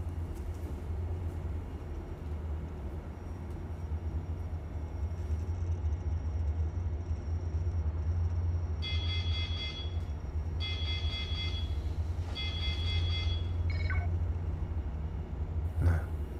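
A steady low hum runs under the scene. About nine seconds in, an electronic ringing tone sounds three times, each ring about a second long with short gaps between, like a phone ringing.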